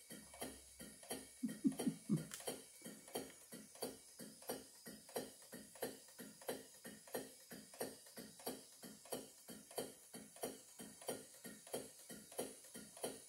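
Half-horsepower Sipp live steam engine running fast under load, making a quick, even beat of several strokes a second. It is driving a belt-and-gear-reduced barrel rotisserie.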